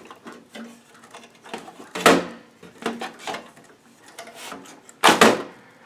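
Clatter of computer parts being handled in a PC case: small taps and scrapes, with a louder clunk about two seconds in and another near the end.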